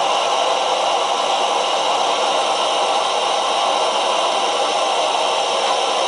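Primus EtaPower MF stove burner running on canister gas, a steady loud hiss as it heats a pot of water toward the boil.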